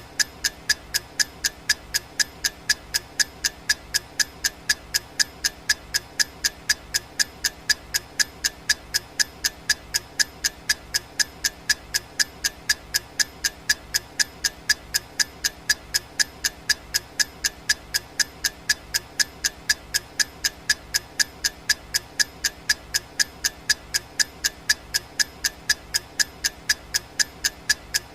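Clock ticking sound effect: an even, sharp tick about twice a second, over a faint steady background.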